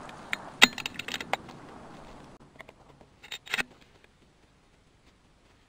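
Sharp metallic clicks and clacks of a bolt-action rifle's bolt being worked. One loud clack about half a second in is followed by a few quicker clicks, and another short cluster of clicks comes around three and a half seconds in, as the rifle is readied for the next shot.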